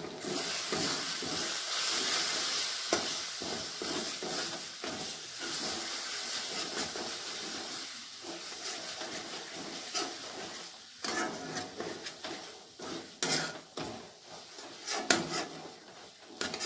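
Masala paste of ginger-garlic and ground spices sizzling in oil in a steel kadhai while a steel spatula stirs it and scrapes the pan. The sizzle starts suddenly and is strongest in the first half; in the second half it dies down and separate scrapes and taps of the spatula on the pan stand out.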